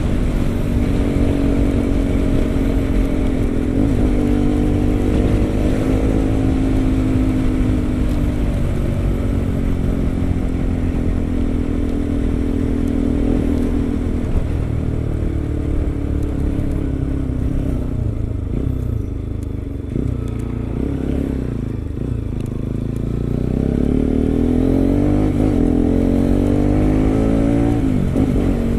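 Kawasaki RS200's single-cylinder engine through an Akrapovic M1 aftermarket exhaust, running at a steady pitch, easing off and dropping lower past the middle, then climbing as it is revved up near the end before the pitch falls sharply.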